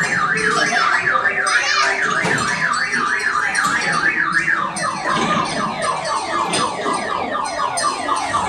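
Electronic siren-like sound effect warbling rapidly up and down in pitch, about three cycles a second, strongest in the first half, with other electronic sweeps overlapping.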